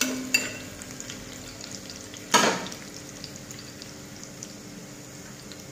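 Chopped ginger, garlic and green chilli sizzling in oil on a flat tawa, with a few light spatula clicks near the start and one louder metal clatter of the spatula about two and a half seconds in.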